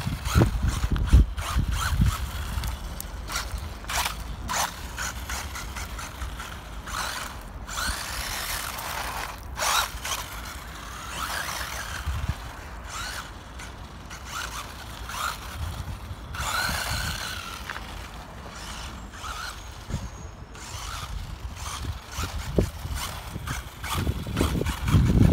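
WLtoys A959-B 1:18 brushless RC buggy driving on asphalt: its electric motor whines up and down in pitch with the throttle, over tyre and drivetrain noise. It gets loud near the end as the car comes close.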